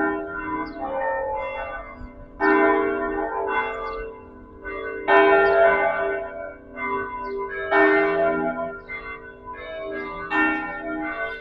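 Church bells ringing, several bells struck one after another, each stroke ringing on into the next; the loudest strokes come about every two and a half seconds.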